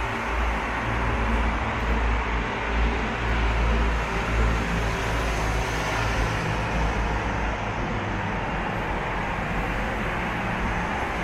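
Steady noise of car traffic passing through a road tunnel, with a heavy low rumble that carries on throughout.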